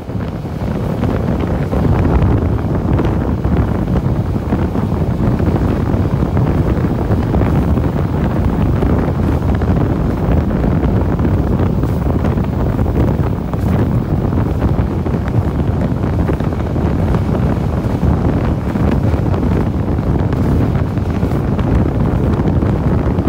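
Steady rumble and rush of the Mutiara Selatan passenger train running at speed, heard from aboard, with wind buffeting the microphone.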